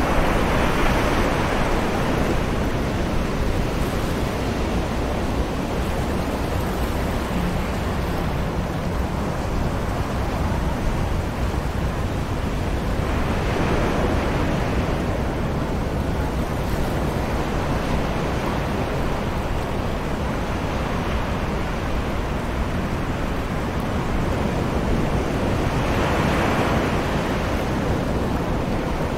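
Ocean surf on a sandy beach: a continuous wash of distant waves, swelling three times as waves break, about thirteen seconds apart.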